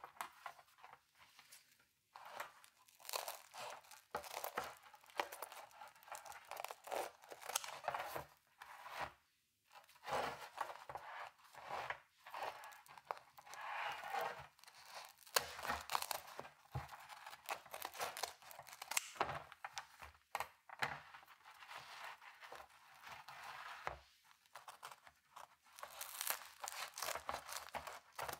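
Kitchen scissors cutting through a baked pizza's crisp crust and toppings: irregular crunching and crackling snips, with a few short pauses between cuts.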